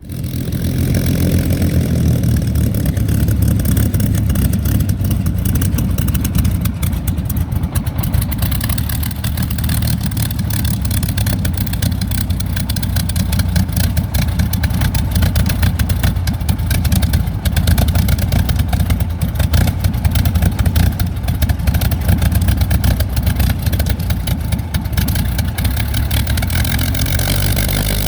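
Rolls-Royce Griffon 74 V12 engine of a Supermarine Spitfire Mk XIV running at low power while taxiing: a loud, steady, low rumble with a dense crackle. Its note shifts near the end.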